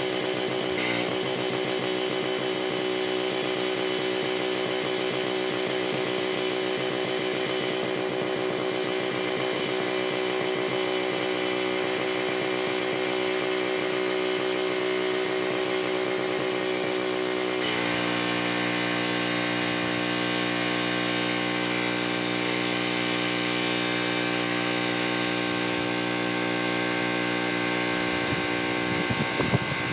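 Gas-engine pressure washer running steadily, its engine note shifting abruptly about 18 seconds in as the load changes. A few sharp knocks near the end.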